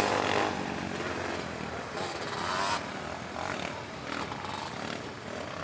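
Racing ATV engines (quads and three-wheelers) on a dirt motocross track, revving and backing off as the machines run the course. One engine revs up sharply about two seconds in.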